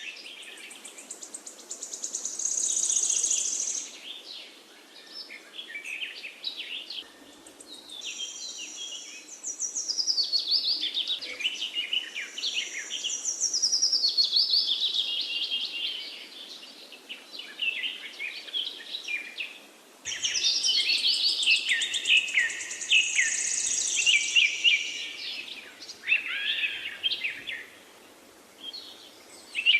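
A chorus of small songbirds chirping and singing over one another, with fast trills and short sweeping notes, over a faint steady background hiss. The chorus thins and swells, jumping louder suddenly about eight seconds in and again about twenty seconds in.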